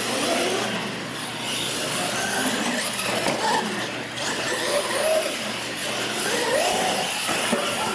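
Electric R/C monster trucks racing on a concrete floor: the whine of their motors and gears rises and falls in pitch as they speed up and slow down.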